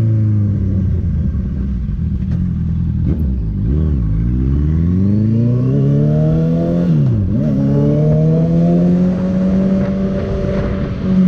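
Honda CB650F inline-four engine through a full Jeskap sport exhaust, heard on the move. The revs fall for the first few seconds, then climb as the bike accelerates, dip sharply once about seven seconds in as if at a gear change, then rise again and hold steady.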